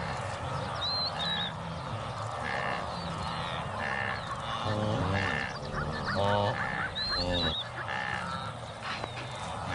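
Wildebeest calling: nasal honking grunts from cows and a calf, several louder calls in the middle, as mother and calf seek each other by voice. Two short bird chirps come high above them.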